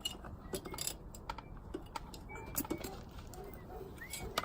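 Scattered small metallic clicks and taps from hand tools and small parts being worked on a dirt bike engine during teardown, irregular and light.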